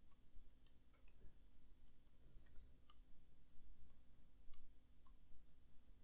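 Faint, irregular small clicks and ticks as fingers handle a keyboard circuit board fitted with Cherry MX switches and thumbs rub over the switch pins poking through its underside.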